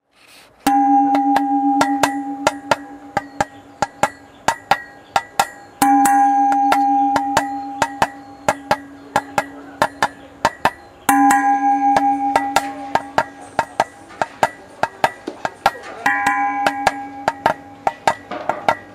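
Rhythmic percussion: a ringing metallic strike about every five seconds, each dying away slowly, over a steady run of quick, sharp wood-block-like taps.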